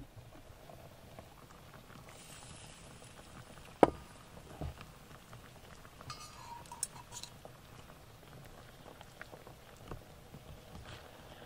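Rice porridge simmering softly in an aluminium foil pan. One sharp knock about four seconds in, then a few light clinks of a metal spoon against the pan.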